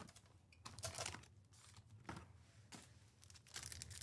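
Foil trading-card pack wrapper being crinkled and torn open by hand: a few short, faint rustles that pick up toward the end.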